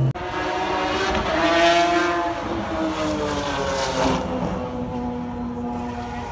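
Race car engine at speed on the track, its note rising to a peak about two seconds in, then falling in pitch as the car passes by and draws away.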